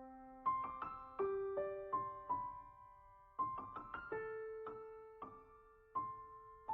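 Background music: a slow, soft solo piano melody, with notes struck in short phrases and left to ring out and fade.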